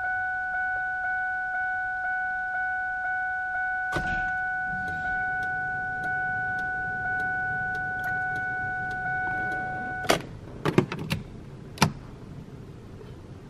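Ford key-in-ignition warning chime of a 2003 Mustang Cobra dinging steadily, about two dings a second. It cuts off suddenly about ten seconds in, followed by a few sharp clicks. There is a single click about four seconds in.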